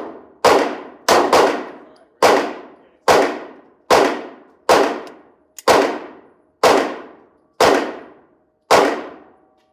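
Handgun shots fired one at a time at a steady pace, about one a second, with a quick pair near the start; each shot is a loud crack with a short ringing echo.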